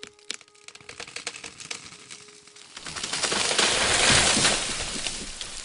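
Rapid, irregular cracks and clicks, then a rush of noise that swells to its loudest about four seconds in and fades away.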